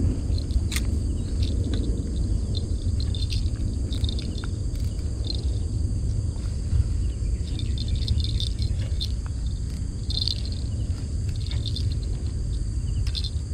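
Insects chirping in short, scattered bursts over a steady low rumble, with one sharp click about a second in.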